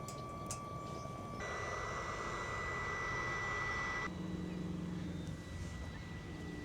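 BioLite CampStove's fan running with a steady whine over the wood fire. About a second and a half in it jumps to a higher pitch with a louder rush of air, which falls away again about four seconds in, leaving a lower hum.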